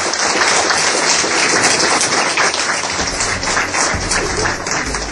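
A small crowd applauding steadily with rapid clapping.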